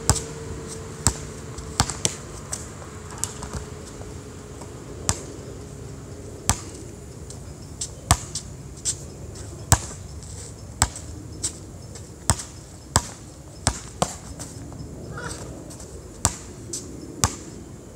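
A basketball being dribbled on a hard outdoor court: sharp, separate bounces, irregularly spaced about half a second to a second apart.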